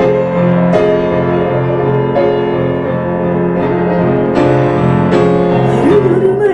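Grand piano playing an instrumental interlude alone, with the chords changing every second or two.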